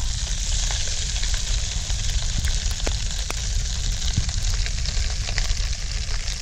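Pot of cow intestines in turmeric-yellow water boiling over a wood fire: a steady sizzling hiss with scattered small pops and crackles.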